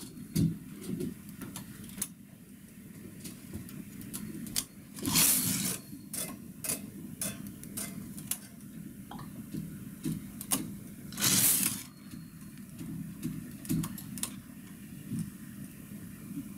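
Single-bed knitting machine: the carriage is pushed across the needle bed twice, about six seconds apart, each pass a brief sliding rush under a second long. In between come light, irregular metallic clicks of a hand tool moving stitches onto the steel needles.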